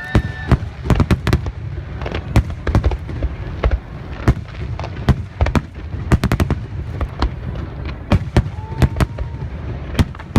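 Fireworks bursting overhead: a steady run of sharp bangs and crackles over a continuous low rumble.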